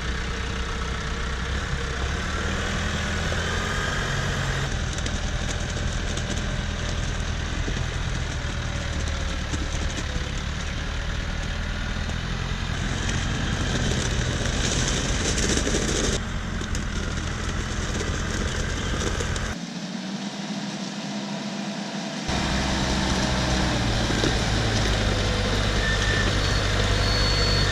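Branson 5520C compact tractor's diesel engine running steadily, warmed up and working. The sound changes abruptly a few times, and about twenty seconds in its low end drops out for a few seconds.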